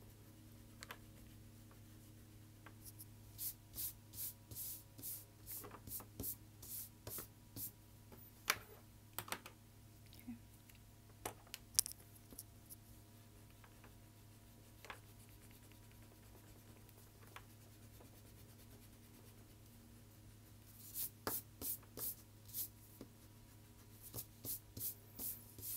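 Coloured pencil scratching on paper in quick back-and-forth strokes, about two a second, in two runs: a few seconds in and again near the end.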